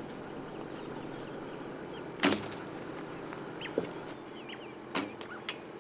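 A single sharp knock about two seconds in, then two fainter clicks, over a quiet outdoor background with a few short bird chirps.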